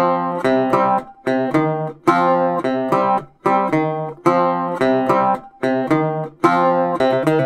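Background music: an acoustic guitar strumming chords in short repeated phrases, with brief stops between them.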